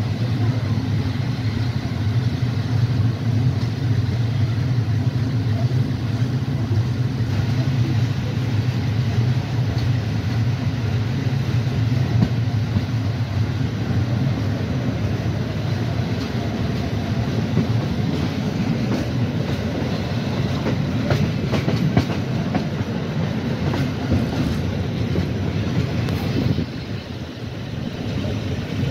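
Passenger train running on the rails, heard from a carriage window: a steady low rumble of wheels and running gear, with scattered clicks as the wheels pass over rail joints and switches in the second half. The noise drops suddenly near the end.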